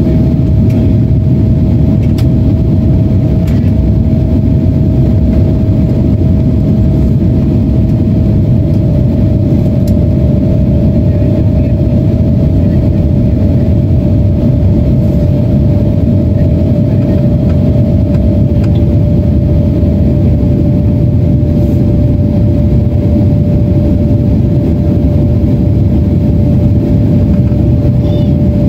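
Steady jet cabin noise inside a Boeing 767-400ER in flight: a loud, deep rumble of engines and airflow with a steady hum that steps slightly lower in pitch about 19 seconds in.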